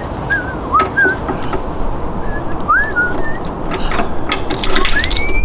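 A string of short whistled notes swooping up and down, ending in a longer rising whistle. A few sharp metallic clicks about four to five seconds in as the lock on the box van's rear roller shutter door is worked.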